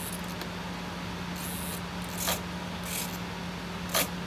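Short, faint whirs from a small RC helicopter tail servo as the rudder stick is pushed over and released, with four or five brief bursts, the last and loudest about four seconds in, over a steady low hum.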